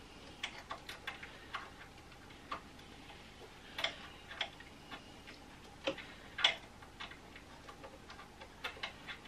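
Small screwdriver working the screws of a Janome HD9 sewing machine's needle plate: irregular light metal clicks and ticks, with a few sharper ones about four seconds and six and a half seconds in.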